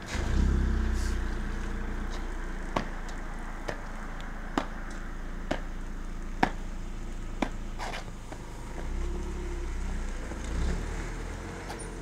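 Low rumble of a motor vehicle's engine, swelling about a second in and again about nine seconds in, with a few sharp clicks in between.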